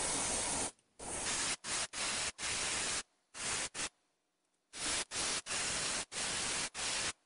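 Gravity-feed airbrush spraying metallic gold paint: a dozen or so short bursts of hiss, about half a second each, as the trigger is pressed and released. There is a short pause about four seconds in.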